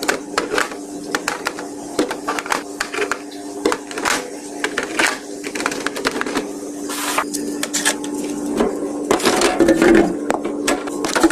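Groceries and containers being handled and put into a fridge: a quick run of clicks, knocks and plastic rustles, getting busier near the end, over a steady low hum.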